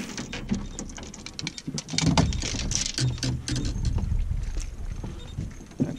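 Dense, irregular clicking and rustling with a low rumble that gets louder about two seconds in: gear and boat handling noise as an angler on a small boat sets the hook and fights a fish.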